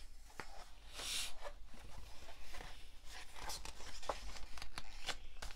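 A picture-book page being turned by hand, with a papery swish about a second in, followed by scattered small rustles and clicks as the paper is handled and flattened.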